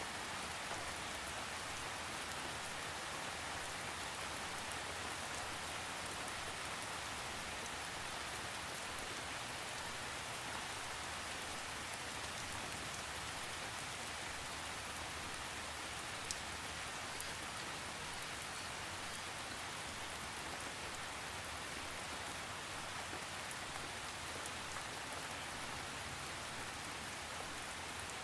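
Steady rain falling on a surface, an even hiss of many drops with no thunder and an occasional single drop tick standing out, one sharper about halfway through.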